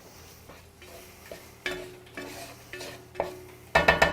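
A spoon stirring curry powder, garlic and ginger in a frying pan: a quiet start, then a run of scraping strokes and knocks against the pan, with a louder clatter near the end.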